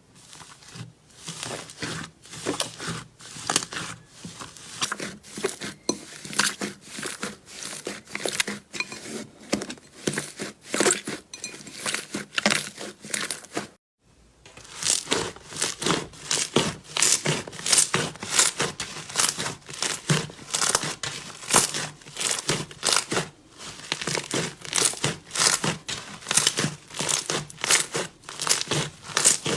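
Slime being squeezed and pulled apart close to the microphone, giving a dense run of crisp crackling, crinkling pops, two or three a second, broken by a brief gap about halfway through.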